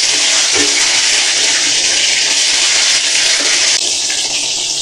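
Butterflied dried milkfish (daing na bangus) frying in a pan of hot oil: a loud, steady sizzling hiss.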